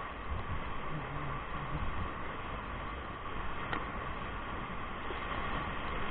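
Whitewater rapid rushing and churning around an inflatable raft as a steady, dense water noise, with a single sharp click about halfway through.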